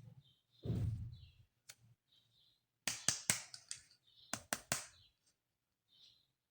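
Toy packaging and toy pieces being handled during an unboxing: a soft thump with rustling about a second in, then two quick runs of sharp clicks and snaps around three seconds and four and a half seconds in.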